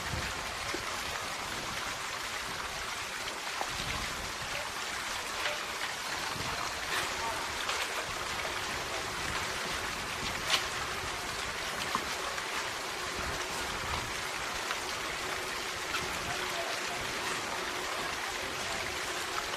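Steady rain-like hiss with scattered faint ticks and one sharper click about ten and a half seconds in.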